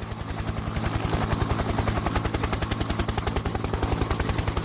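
Background music with a rapid, even pulse of about ten beats a second over a steady low drone.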